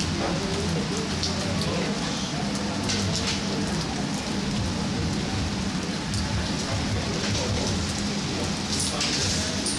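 Steady rain falling on a wet street and parked cars, with scattered sharper drop hits over an even hiss. A low steady hum runs underneath.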